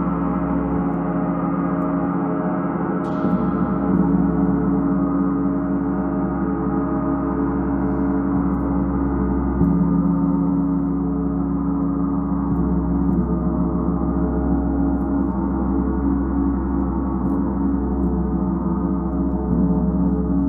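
Large hanging gong played with a felt-headed mallet, soft repeated strokes keeping up a continuous wash of many overlapping ringing tones. A brighter stroke comes about three seconds in and a louder one near the middle.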